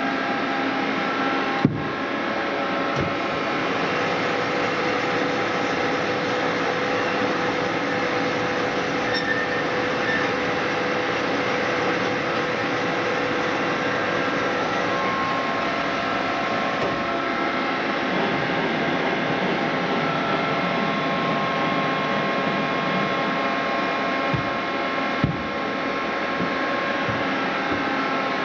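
FMB Zeus automatic horizontal band saw running, a steady mechanical whir with several held tones that shift about halfway through. Two sharp clicks, one near the start and one near the end.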